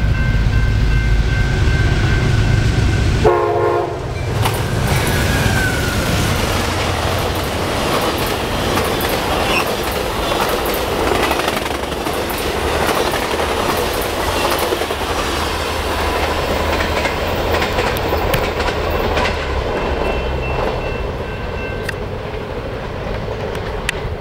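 Amtrak P42 diesel locomotive sounding its horn, a steady chord over a heavy engine rumble, as it approaches at speed. The horn and rumble cut off abruptly about three seconds in as the locomotive passes. The long, dense rush and clickety-clack of the Superliner bi-level cars' wheels follows, with the horn chord heard again faintly near the end.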